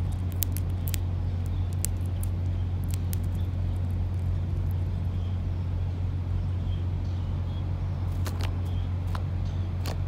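A steady low rumble, with faint scattered sharp clicks and a few faint, short high chirps over it.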